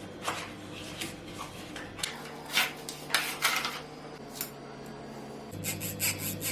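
Dishes and kitchen utensils being handled on a counter: a scattered series of light knocks and clinks over a low steady hum.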